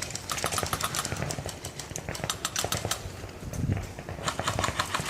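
Airsoft guns firing in rapid bursts of sharp clicks, in several runs with short gaps between.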